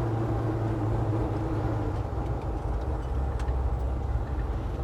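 A 383 stroker small-block V8 in a 1966 Chevy C10 pickup running steadily on the road, heard from inside the cab as a low drone with road noise. The engine note drops about a second in as the truck eases off.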